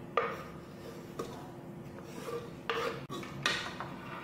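Wooden spoon and cutting board scraping and knocking against an aluminium pressure cooker as chopped spinach is pushed in and stirred into cooked dal: about half a dozen short scrapes and clunks.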